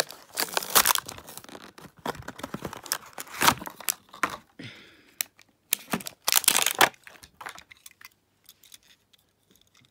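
Cardboard-and-plastic blister package of a diecast toy car being torn open by hand: bursts of tearing and crinkling plastic for about seven seconds, then only faint handling.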